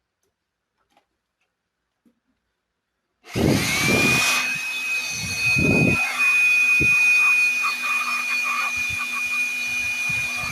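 A small electric blower used to clean dust from a laptop's cooling fan switches on a little over 3 s in. Its motor whine rises quickly to a steady high pitch over rushing air, with a few low thumps from handling, and it begins to wind down right at the end.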